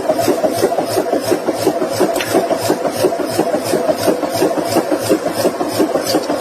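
Forging-shop machinery running steadily with a regular pulsing beat, about three beats a second.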